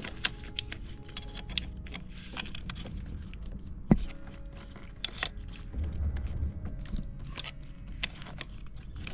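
Small tools and parts being handled during bench work: scraping, crunching and clicking, with one sharp click about four seconds in.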